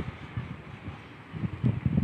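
Wind buffeting the microphone in uneven gusts, a rough low rumble over a faint hiss, growing stronger near the end.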